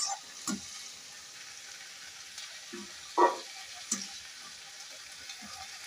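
Chopped cowpea (lobia) pods sizzling in hot oil in a steel kadhai, with a few short scrapes and clinks of the spatula against the pan as they are scooped out.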